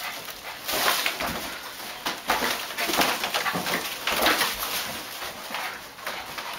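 A dog excitedly going after balloons, whimpering and scuffling in a run of short, uneven bursts.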